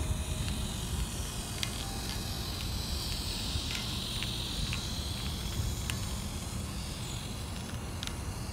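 Small electric motor of a battery-powered toy train whirring as the engine runs around a plastic track, louder in the middle as it passes close, with a few sharp clicks. A steady low rumble runs underneath.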